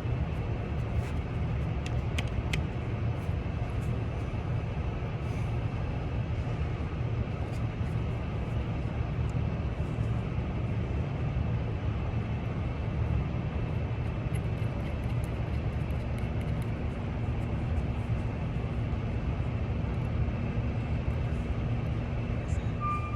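Steady low rumble of vehicle engines running nearby, with a few faint light clicks about two seconds in.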